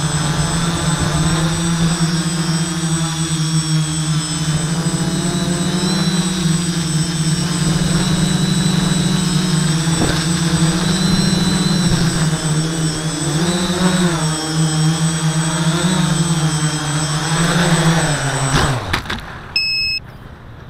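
Quadcopter's Sunnysky 980kv brushless motors and propellers humming, heard from on board, the pitch wavering up and down with the throttle. Near the end the motors wind down quickly and stop, and a short electronic beep follows.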